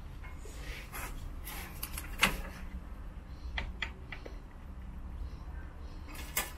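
A hydraulic jack being let down as the vehicle settles onto a jack stand: one sharp metal knock about two seconds in, then a few lighter clicks, over a low steady hum.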